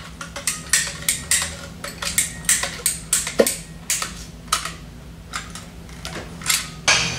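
Hand work at a shop bench: a string of sharp, irregular clicks and light metallic clinks, a few a second, over a steady low hum.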